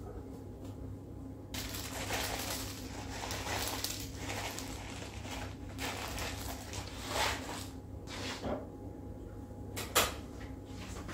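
Pearl sugar shaken from a crinkly foil bag and scattered over a tray of cinnamon buns: a rough, crackling rustle in uneven surges for about seven seconds. It stops, and a single sharp knock follows near the end.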